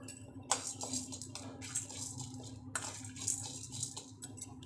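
Chana dal and dried red chillies stirred in a hot metal kadai: repeated scraping and rattling of the grains against the pan as they fry, over a steady low hum.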